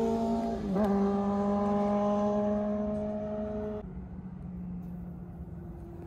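A vehicle's engine droning steadily. Its pitch dips briefly about a second in, then it fades away.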